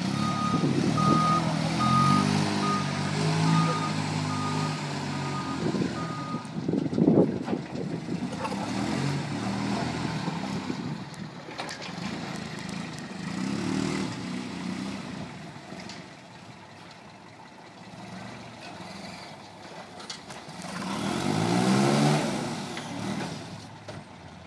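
Truck-mounted forklift's engine running, with its reversing alarm beeping steadily for the first six seconds or so. A sharp clunk comes about seven seconds in, and the engine revs up, rising in pitch, near the end.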